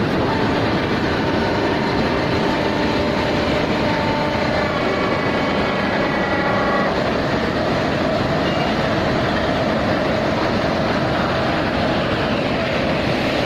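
Uroko rotary veneer lathe running as it peels a log: a loud, steady mechanical rumble and clatter, with a faint whine that holds for a few seconds in the first half.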